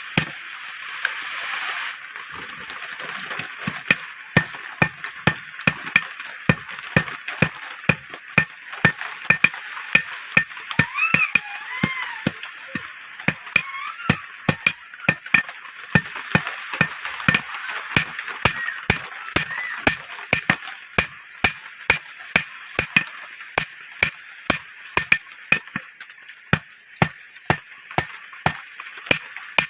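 Blacksmith's hand hammer striking an iron rod on an anvil while forging a sickle, a steady run of ringing blows about two a second. A rushing noise comes first, for about two seconds, before the hammering begins.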